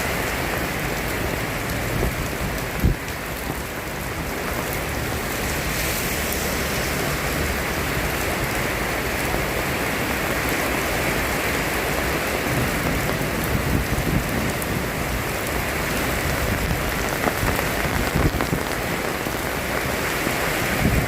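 Steady rain falling, with one louder knock about three seconds in.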